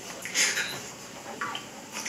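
A young woman's audible breath in a pause between sentences of a recorded voice message, over a steady faint hiss.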